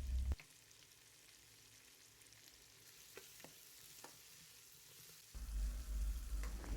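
Sliced onions frying in oil in a kadai, sizzling faintly, with a few light clicks of stirring. A low rumble is present at the start and again from about five seconds in.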